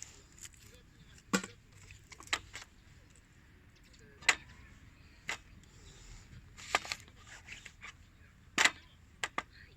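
A handful of separate sharp knocks and clicks, one every second or two, over a low steady background.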